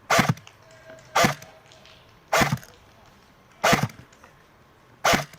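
CYMA M14 airsoft electric rifle (AEG) firing five single shots, each a sharp crack, a little over a second apart.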